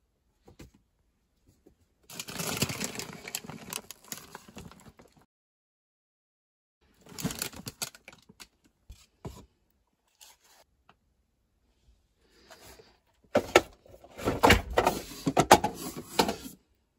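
Crinkly rustling and crackling of a plastic bag and paper bags being handled, in three bouts, the last the loudest.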